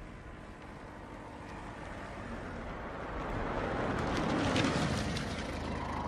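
A motor vehicle driving up, its steady engine and road noise growing louder to a peak about four and a half seconds in, then easing slightly.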